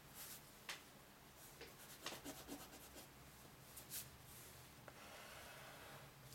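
Faint pencil strokes scratching on drawing paper: a few short strokes, then a longer run of light scratching near the end.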